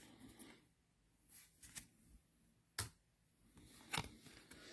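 Near silence with a few faint, short clicks, about three over the stretch: baseball trading cards being handled and flicked through.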